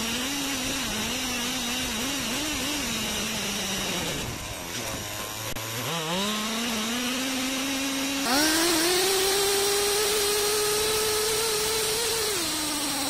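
Hobao Hyper SS 1/8-scale buggy's small two-stroke nitro engine revving up and down under the throttle. It drops to a low idle about four seconds in, climbs again in two steps, holds a high steady pitch, and eases off near the end.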